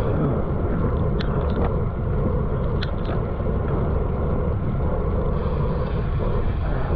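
Wind rushing over the microphone of a moving bicycle, a steady low rumble, with a few short sharp sounds about a second in and again about three seconds in.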